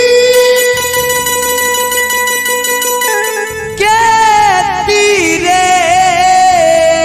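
A man singing a Bhojpuri nirgun song into a microphone over electronic keyboard accompaniment. He holds one long note, breaks off about three seconds in, and starts a new phrase about a second later with a wavering, sliding pitch.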